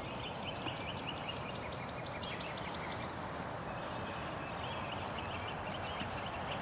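Outdoor ambience: a steady hiss under runs of rapid, repeated high chirping calls from small animals, the first run stopping about three seconds in and another starting soon after.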